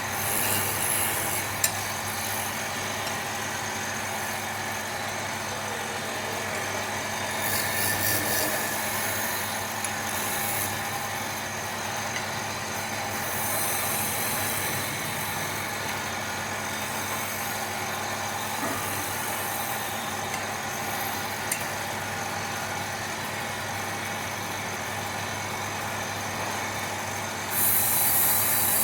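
Woodturning lathe motor running steadily with a low hum, while a tool works the spinning wood in spells of hissing scraping, several times and loudest near the end.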